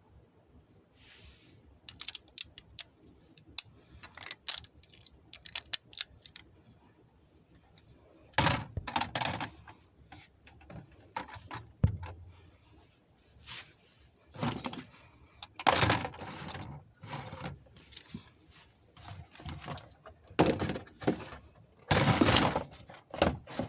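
Small hard plastic parts of a Beyblade spinning top being handled: a run of sharp clicks and clatters, then several short bursts of rustling or scraping about a second long each.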